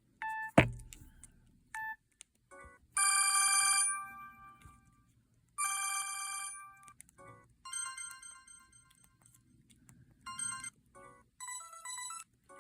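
A Samsung SGH-G600 mobile phone's speaker playing short message alert tones one after another, each a brief electronic trill or jingle lasting about a second. Short beeps come between them, and there is a sharp click near the start.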